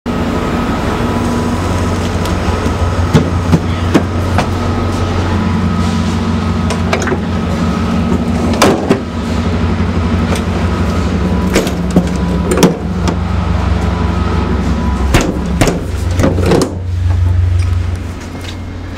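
Steady low hum of a standing passenger train's onboard equipment, with a faint whine above it. Over it come a series of sharp metallic clicks and knocks from a coach door being closed and footsteps on the steel floor plates of the car. The hum falls away near the end.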